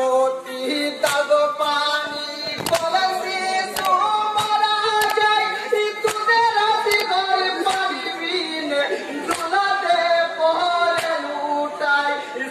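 Unaccompanied group singing of a Bengali jari-marsiya, a Muharram lament for the martyrs of Karbala: a lead voice with the group joining in. Sharp percussive hits come roughly once a second throughout.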